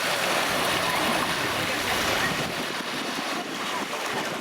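Sea surf washing onto a beach: a steady rushing of waves that swells slightly in the first half.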